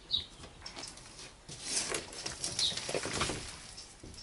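A large sheet lid being lifted off a raised bed and propped up with a wooden board: rustling and scraping of the panel and the debris on it, loudest between about one and a half and three and a half seconds in.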